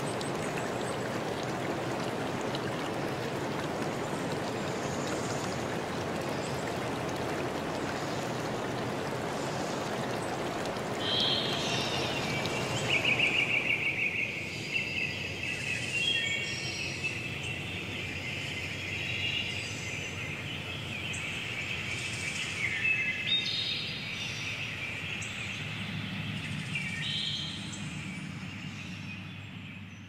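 A stream's water flowing as a steady rush. About eleven seconds in, birds start chirping and singing, and the water sound drops away a few seconds later. The birdsong goes on and fades out at the end.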